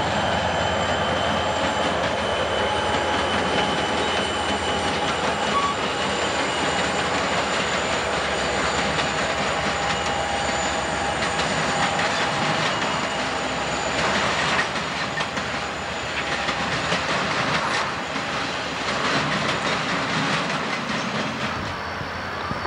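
SOO Line and CP Rail diesel locomotives of a freight train rolling past, with steady wheel-on-rail rumble and clatter and thin, drawn-out wheel squeal.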